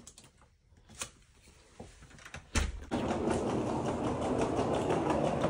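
A few faint clicks and a thump, then from about three seconds in a steady, dense rattle of a small rolling suitcase's wheels running over a hard floor.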